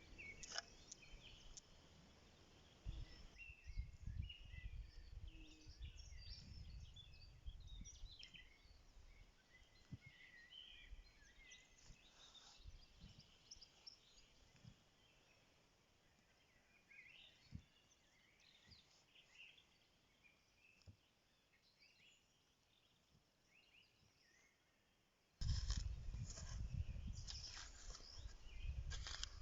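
Faint outdoor ambience with many short, high bird chirps scattered through it and a low rumble in the first several seconds. Near the end a much louder low rumbling noise starts suddenly.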